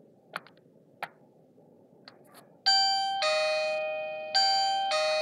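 Wireless video doorbell: two light clicks of the button being pressed, then the electronic ding-dong chime plays twice, a higher note falling to a lower one, each note ringing and fading.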